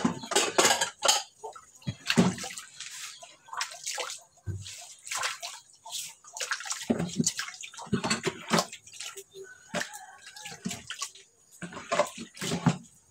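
Water splashing and sloshing in a basin as dishes are rinsed by hand, in short irregular bursts.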